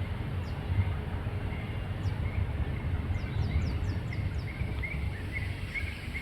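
Outdoor ambience: small birds chirping in short repeated notes, with a few quick high falling calls, over a steady low rumble.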